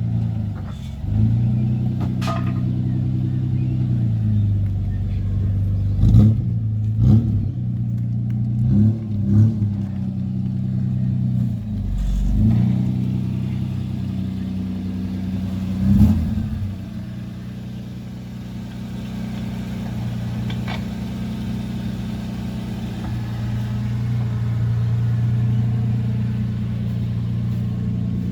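Holden Commodore's engine running, revved briefly several times with a few sharp knocks in the first half. After about seventeen seconds it settles into a steady idle.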